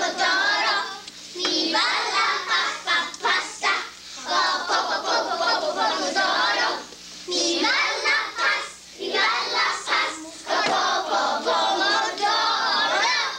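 A group of children singing together in phrases, with hand clapping.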